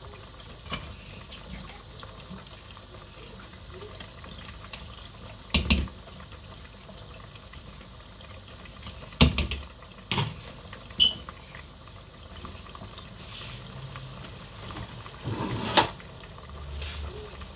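Large pot of meat stew boiling on a gas stove, a steady bubbling hiss, with a few sharp knocks about 5, 9, 10 and 16 seconds in.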